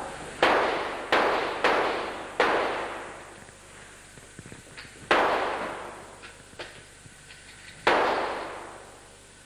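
Six gunshots echoing down an indoor shooting range: four in quick succession in the first two and a half seconds, then two more, one around the middle and one near the end, each ringing out in a long reverberant tail.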